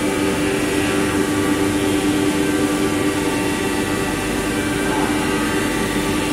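ATC CNC router with a 4-axis swinging spindle running while it machines a curved wooden workpiece; the spindle gives a steady whine over a constant mechanical noise.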